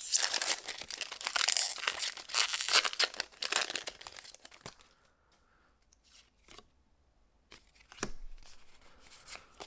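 Foil wrapper of a Pokémon card booster pack being torn open and crinkled for the first four seconds or so. Then it goes quiet, apart from a few light clicks as the cards are handled.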